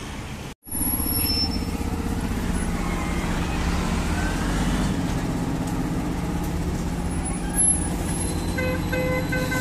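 Roadside traffic, with a heavy vehicle's engine running close by, steady and low, cutting in after a brief silence just under a second in. A quick run of short beeps sounds near the end.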